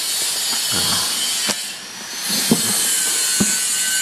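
A book being handled and its pages turned: paper rustling with a few light knocks about a second apart.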